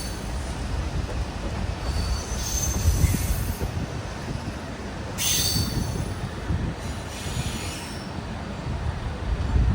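Passenger train hauled by a WDP-4D diesel locomotive rolling past with a steady low rumble, and high-pitched wheel squeals three times.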